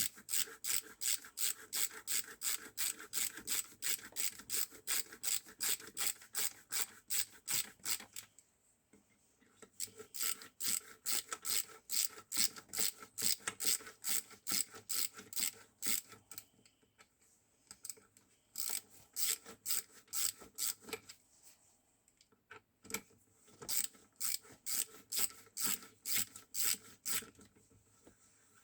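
Rapid back-and-forth rasping strokes by hand on a gearbox part, about four strokes a second, in several runs with short pauses between them.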